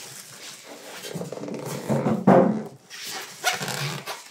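Styrofoam packing block being pulled and scraped off a plastic-wrapped oven air fryer, foam rubbing and squeaking with plastic film rustling, loudest about two seconds in.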